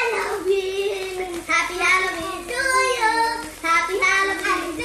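Children singing a song together, in long held notes.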